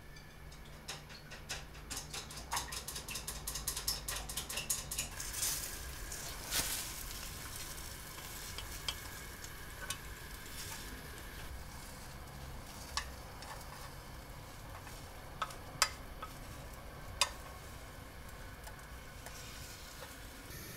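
Chopsticks stirring quickly in a bowl or pan, a fast run of light clicks, then egg for a rolled omelette (tamagoyaki) sizzling in a rectangular pan over a gas flame, louder about six seconds in, with a few sharp single clicks of chopsticks against the pan.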